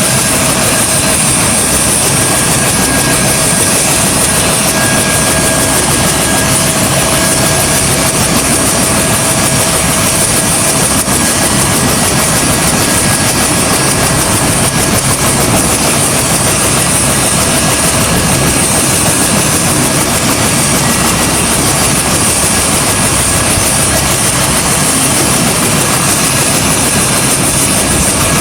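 UH-1H Huey helicopter with its Lycoming T53 turboshaft engine and rotor running steadily, a constant high turbine whine over a dense rotor and engine noise.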